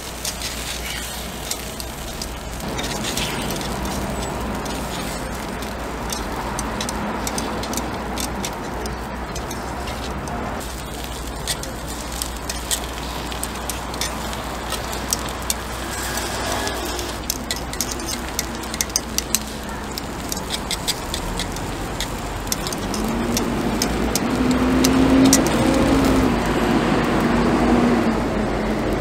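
Takoyaki-style batter balls sizzling in a cast-iron griddle pan, with thin metal skewers clicking against the pan as they are turned. Under it runs a steady traffic-like rumble, with a pitched hum that swells near the end.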